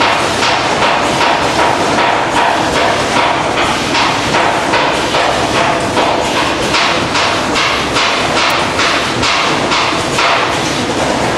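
Food packaging-line machinery running: a steady mechanical din with fast, regular clacking from the packing machines.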